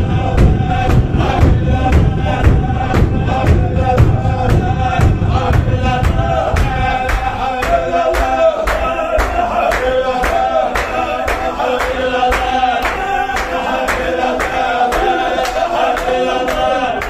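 Group of men chanting a Sufi zikr in unison, with sharp rhythmic beats about twice a second. The deep low part of the chant drops away about seven seconds in, leaving the higher voices.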